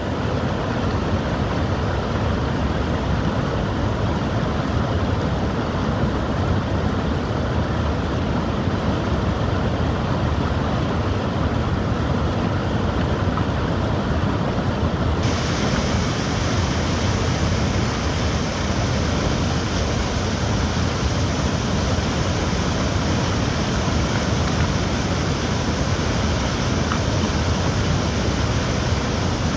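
Floodwater pouring over a weir and rushing down its stepped apron in a steady, loud rush; the hiss in the upper range turns abruptly brighter about halfway through.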